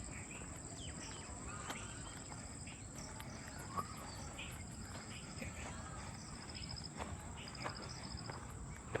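Outdoor insect chorus: a steady high-pitched drone with short pulsing trills repeating every second or so, under scattered short bird chirps. A few sharp clicks stand out, the loudest about four seconds in and at the very end.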